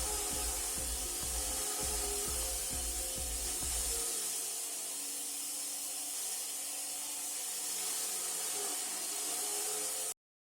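Homemade olive crusher running, its motor-driven blades grinding olives inside the steel pot drum, with a steady hiss and hum. A low rumble with irregular knocks fills the first few seconds, then drops away while the motor keeps running, and the sound cuts off abruptly just before the end.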